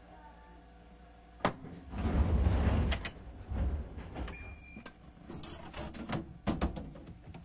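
Choshi Electric Railway train standing at a station with its passenger sliding doors working. A sharp click, then a loud rush of air-driven door movement about two seconds in, followed by a series of knocks and clicks and a short electronic beep.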